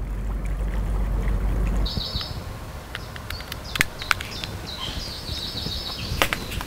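Outdoor ambience: a low wind rumble on the microphone for about two seconds, then small birds chirping and trilling, with a few sharp clicks.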